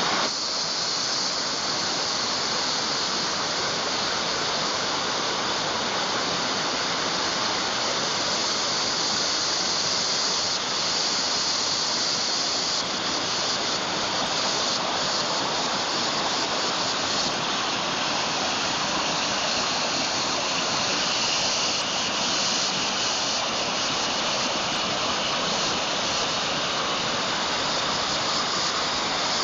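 A waterfall running: steady, unbroken noise of falling water.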